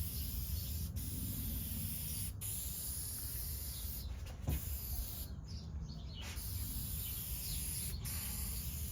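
Aerosol can of shellac spraying in a steady high hiss, breaking off briefly twice around the middle, over a low rumble.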